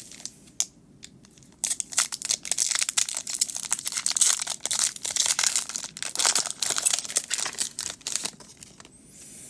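Foil booster pack wrapper of Pokémon trading cards crinkling and crackling as it is handled. It is sparse for the first second and a half, then a dense run of rapid crackles lasts until near the end.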